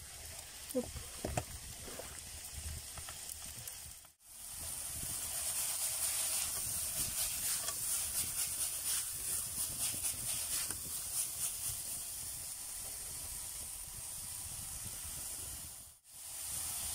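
Chopped vegetables frying in oil in a pan over wood embers: a steady sizzle with fine crackling. It is quieter for the first few seconds, breaks off briefly about four seconds in, then comes back louder and breaks off again near the end.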